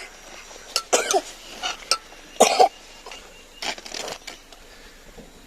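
A person coughing several times in short separate bursts, the loudest about two and a half seconds in.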